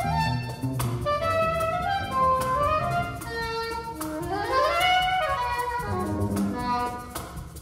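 Free-jazz trio playing: a reed instrument runs up in quick steps, then slides smoothly up and back down, over low cello notes and hand-drum strikes.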